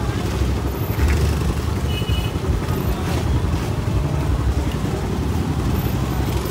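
Scooter and motorcycle engines running in slow, crowded street traffic, heard from a moving scooter: a steady low rumble of engines and road noise.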